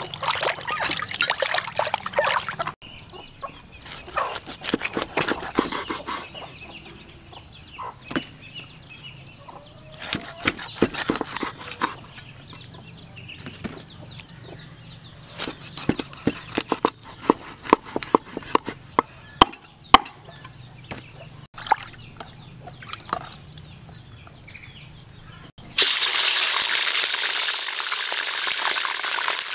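Water splashing and sloshing as a fish is rubbed clean by hand in a plastic basin. Then a cleaver chops the fish on a wooden chopping board in several groups of sharp knocks. About 26 s in, a loud steady sizzle starts as the fish pieces go into hot oil in a wok.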